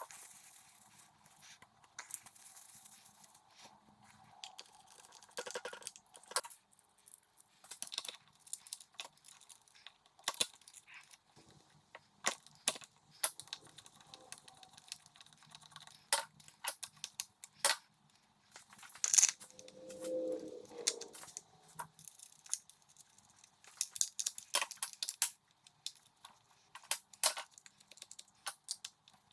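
Irregular clicks, taps and knocks of hands and tools working on the plastic and metal parts of a Stihl MS290 chainsaw's fuel system, scattered throughout, the loudest a little after halfway.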